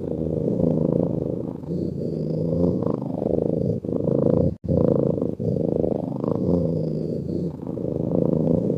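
Domestic cat purring steadily in its sleep: a low, rough rumble that swells and eases every couple of seconds with its breathing. A brief dropout about halfway through.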